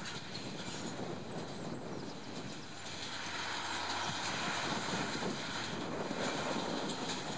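Small narrow-gauge diesel locomotive running steadily as it approaches with a train of peat wagons, growing gradually louder.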